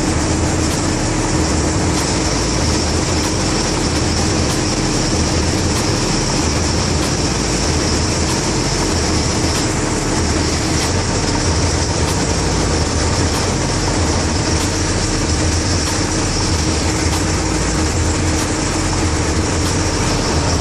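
Ferry boat's engine running steadily under way: a constant loud drone with a low hum and a steady tone over a wash of noise.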